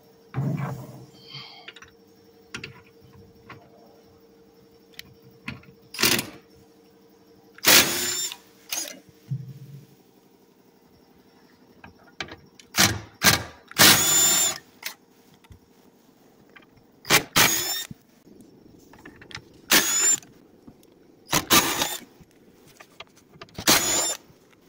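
Cordless impact wrench with a 14 mm socket undoing seat-rail bolts, running in about a dozen short bursts of rapid hammering with a high motor whine, each about half a second to a second long. A faint steady hum lies underneath.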